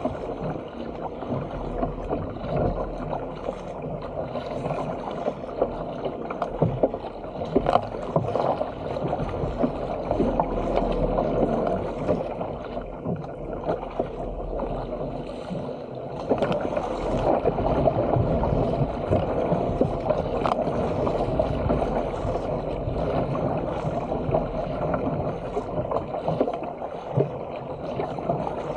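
Sea water rushing and splashing along the hull of a Stealth 457 fishing ski paddled steadily through choppy water, with the splash of the paddle blades at irregular strokes.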